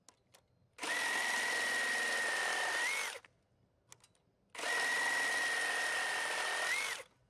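Milwaukee M18 Fuel Super Sawzall brushless reciprocating saw cutting through a knotty 1x6 board, with the orbital action off. There are two cuts of a little over two seconds each, separated by a short pause. Each is a steady cutting rasp with a high motor whine that rises briefly in pitch as the cut ends.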